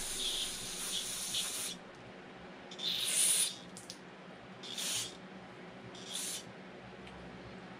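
Aerosol can of carb and manifold cleaner spraying through its straw into the ports of a chainsaw carburetor: one long hissing spray of nearly two seconds, then three short bursts.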